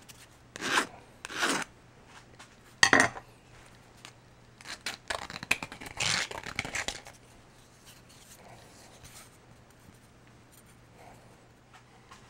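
Flat metal file scraping along the cut edge of a thin aluminum bottle ring to smooth off burrs: three or four short strokes in the first three seconds, then a longer run of scraping around five to seven seconds in.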